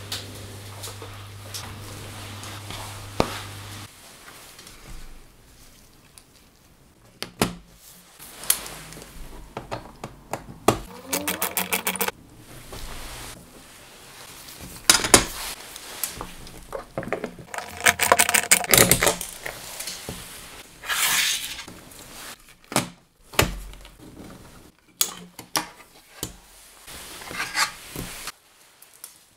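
Hard plastic and metal laptop parts being handled and taken apart by hand: scattered clicks and knocks, with a few short runs of quick rattling clicks.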